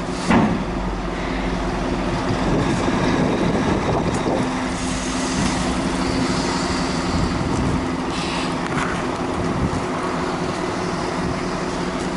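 Truck diesel engine running steadily, with a short knock about a third of a second in.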